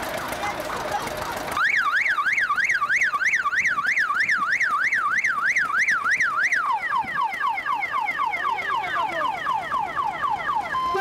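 Electronic siren starting about a second and a half in with a fast up-and-down warble, about three sweeps a second, then switching about halfway through to a repeated falling tone.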